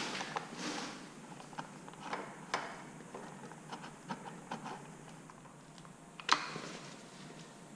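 Scattered light metal clicks and scrapes of hand tools fitting a bolt into a motorcycle's side cover, with one sharper click about six seconds in.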